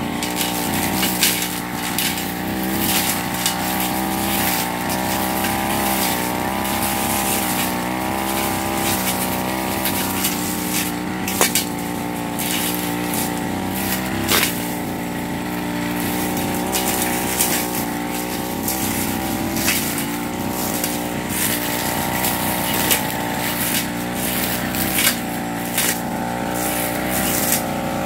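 Two-stroke backpack brush cutter running at high speed as it cuts grass, its engine pitch wavering up and down with the throttle and load, with frequent sharp clicks.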